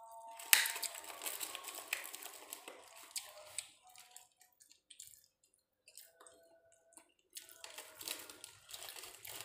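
A person eating crispy smashed fried chicken by hand, chewing and pulling the coated chicken apart, with crackly crunching and squishing. The crunching stops for a few seconds in the middle and starts again near the end.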